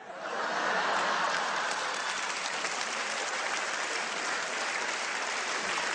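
Live audience applauding, breaking out at once and continuing steadily.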